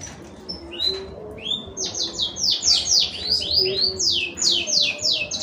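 Small bird chirping: a few scattered high chirps, then from about two seconds in a steady run of short, falling chirps, about four a second.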